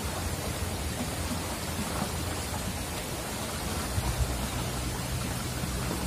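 Shallow stream water rushing steadily over rocks in a riffle. A low rumble joins about four seconds in.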